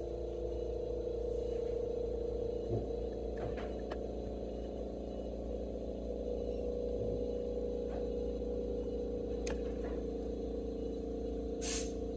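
Steady droning hum with several held tones, with a few faint ticks and clicks over it.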